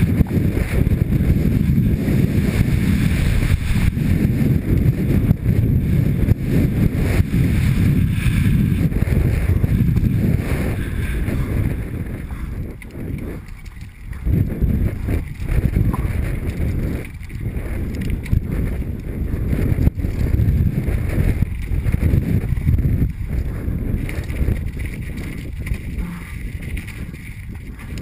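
Wind buffeting a helmet-mounted camera while a mountain bike rattles over rough dirt and rocky trail on a fast downhill run, easing briefly about halfway through.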